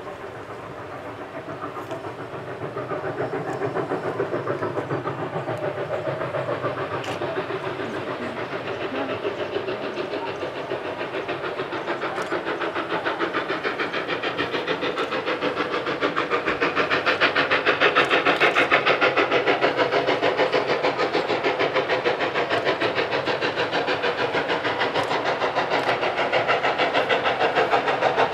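Norfolk & Western 611, a 4-8-4 steam locomotive, working up a grade toward the listener, its rapid exhaust beats and running noise growing steadily louder.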